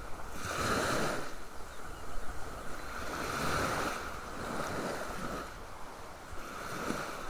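Sea surf breaking and washing up a sandy beach, the rush of the water swelling and falling back about every two to three seconds.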